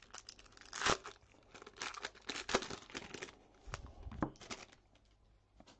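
Baseball trading cards being handled and flicked through by hand: a run of irregular short rustles and snaps that thins out about five seconds in.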